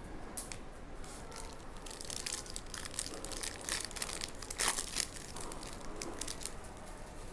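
Prizm basketball trading cards being handled and flipped through, a run of crisp clicks and rustles. The sharpest snap comes about four and a half seconds in.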